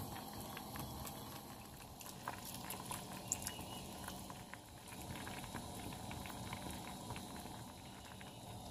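A pan of bamboo-shoot soup boiling, the broth bubbling steadily with many small pops and clicks.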